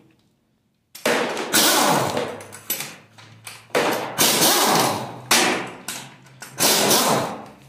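Hammer blows on metal, about seven sharp strikes each ringing out, starting about a second in, as the rear oil seal cover of a Toyota 1FZ straight-six engine is knocked loose.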